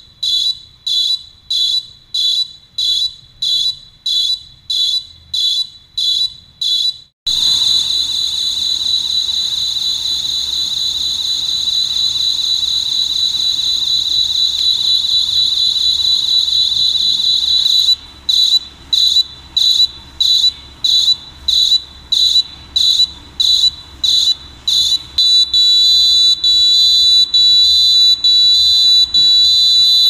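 Arduino-driven piezo buzzer sounding homemade siren patterns: shrill high-pitched beeps about twice a second, then a continuous tone from about seven seconds in, rapid beeps again around eighteen seconds, and a steady tone again from about twenty-five seconds.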